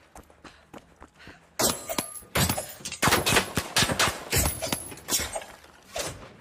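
Wakizashi swords clashing in a duel: a rapid series of sharp metal strikes with short ringing, starting about one and a half seconds in and dying away near the end. Before them come faint, evenly spaced ticks.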